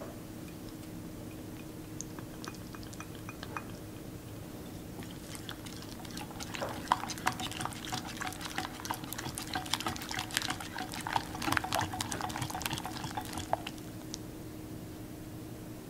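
Hand whisk stirring batter in a bowl, the wires ticking rapidly against the bowl from about five seconds in until near the end, after a few lighter clicks early on.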